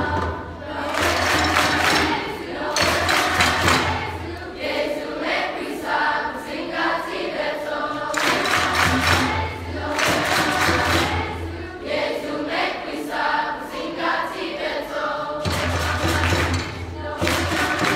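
Middle school choir singing, in loud passages that swell and ease.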